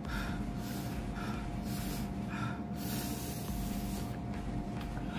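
Close-miked eating sounds from someone working through spicy fried chicken wings: chewing, with short sharp breaths and sniffs through the nose and mouth coming every half second or so. A faint steady hum sits underneath.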